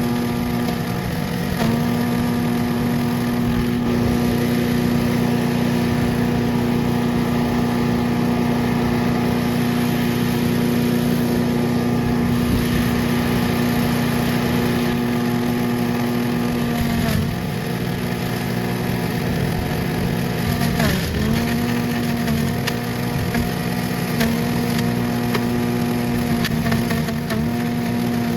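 MTD chipper/shredder engine running steadily while shredding oak leaves. Its pitch sags briefly and recovers several times, deepest about 21 seconds in, as the load of leaves going through bogs it down.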